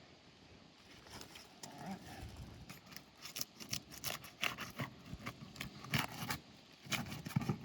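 Irregular crackling, snapping and scraping clicks starting about a second in: an asphalt roof shingle being pried up and peeled from the sealant strip of the course beneath it.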